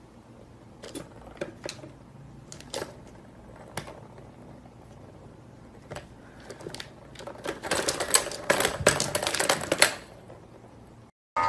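Plastic balls clicking and rattling around the tracks of a three-tier plastic ball-track cat toy as a kitten bats at them. Scattered single clicks at first, then a dense clattering run about three-quarters of the way through that stops abruptly.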